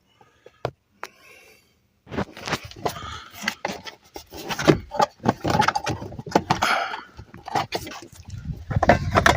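Plastic steering-column cover of a 2004 Honda Accord being worked loose by hand. Irregular clicks, knocks and rattles of plastic trim start about two seconds in.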